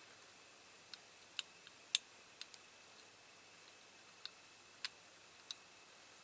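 Faint, irregular small clicks and taps of diecast model parts being handled as the doors are slid into a Dinky Toys car body, about nine in all, the loudest about two seconds in.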